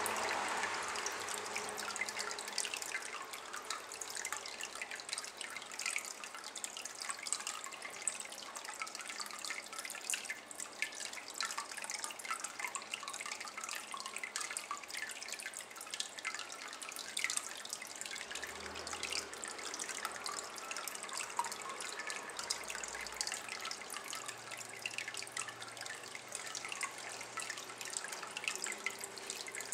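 A thin stream of water trickling into a shallow water-filled ceramic basin, making a continuous run of small drips and splashes on the water surface.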